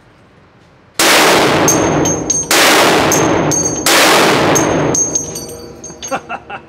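Three shots from a Barrett M82A1 semi-automatic .50 BMG rifle, about a second and a half apart and starting about a second in. Each shot booms and echoes hard in an indoor range and is followed by high metallic ringing, and the echo fades into small clinks near the end.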